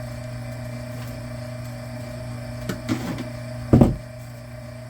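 Electric wire stripper's motor humming steadily, with a couple of light knocks from handling the Romex and one loud, sharp thump near the end.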